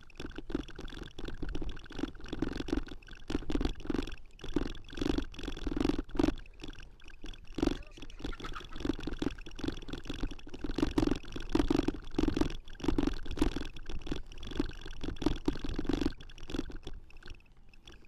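Irregular knocking and rumbling of a handlebar-stem-mounted camera shaking as the bicycle rolls over a rough, wet dirt track. It dies down near the end.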